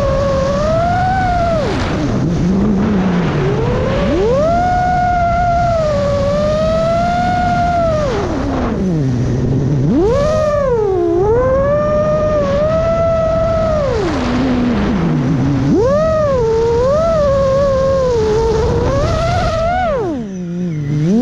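Chimera 7.5 FPV quadcopter's motors and propellers whining, the pitch swooping sharply down and back up several times as the throttle is cut and punched through freestyle moves.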